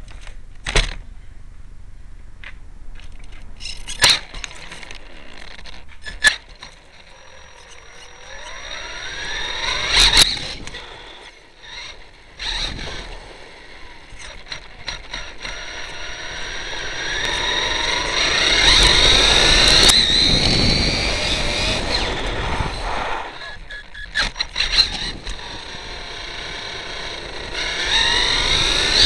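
Onboard sound of an HPI E-Firestorm Flux electric RC stadium truck: its brushless motor and drivetrain whine, rising in pitch each time it speeds up, several times over. Sharp knocks and clatter from the truck hitting the road come in between.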